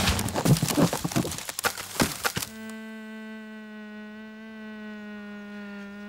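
Cartoon crash sound effects: a scramble of knocks and thumps over the first two and a half seconds as two characters collide and tumble. Then a steady low buzzing hum.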